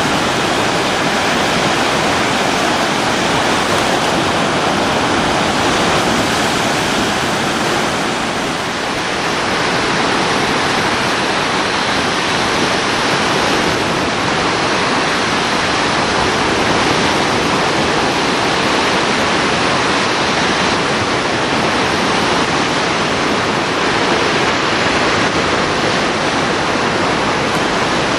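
Lake Michigan waves breaking on a sandy beach: a steady, unbroken rush of surf.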